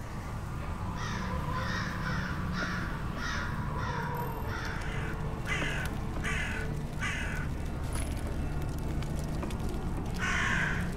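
A crow cawing: a quick run of about seven caws, then three more spaced caws, then a single louder caw near the end, over a low steady rumble.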